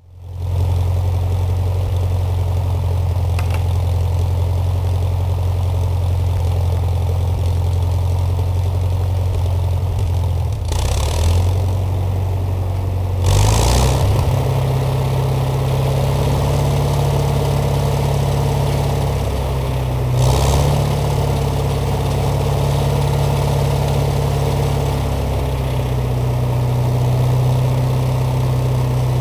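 Wisconsin VG4D air-cooled V4 engine on an old wood chipper running steadily as it warms up after a cold start. Its engine note shifts a few times, about eleven, thirteen and twenty seconds in.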